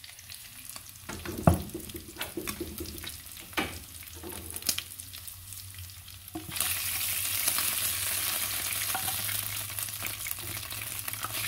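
A spatula scraping and clacking against a frying pan as pieces of fried pork rib are lifted out, then from about six and a half seconds in a steady sizzle of hot oil and meat.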